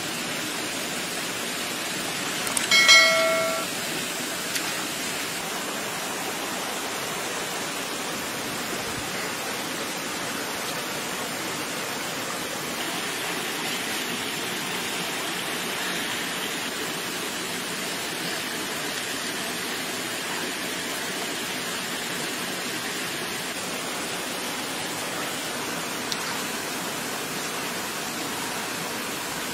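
A steady rushing hiss throughout. About three seconds in, a short bell-like chime of several ringing tones, the sound effect of a subscribe-button animation, stands out as the loudest moment.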